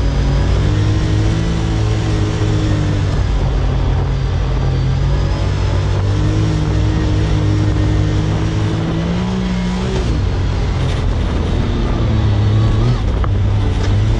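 Side-by-side UTV engine running under load through soft sand, its revs rising and falling with the throttle and climbing to a peak about nine seconds in. A few short knocks come near the end.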